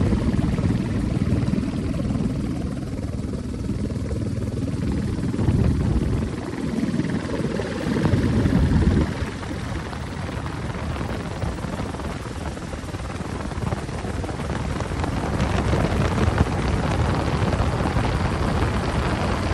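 Airbus AS350 single-engine helicopter heard from the cabin in flight: steady, dense rotor and turbine noise. A low rumble swells twice in the first nine seconds, then gives way to a brighter rushing noise.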